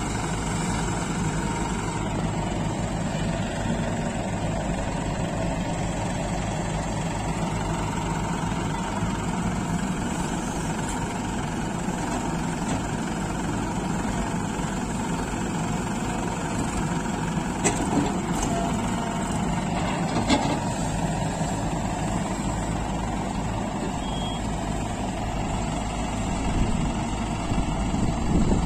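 Heavy diesel engine running steadily, with a couple of sharp knocks about two-thirds of the way through.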